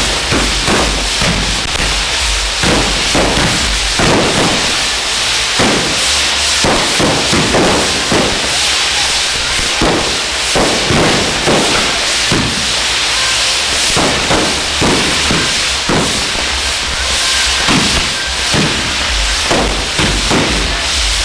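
Ground fireworks going off: a steady, loud hiss of burning jets with frequent sharp bangs and cracks at irregular intervals.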